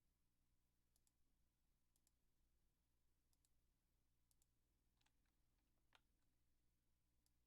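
Near silence, with faint computer mouse clicks, several of them in quick pairs, every second or so, and a few softer ticks just past the middle.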